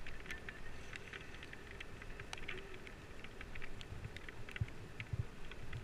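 Wind buffeting an action camera's microphone in low rumbling gusts, with many small irregular taps of raindrops hitting the camera housing.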